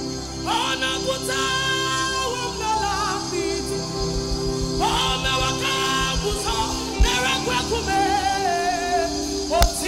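Live gospel worship song: a woman's voice sings three long phrases that sweep up into held notes with vibrato, over a band's sustained keyboard chords and bass. A sharp drum hit comes about seven seconds in and another near the end.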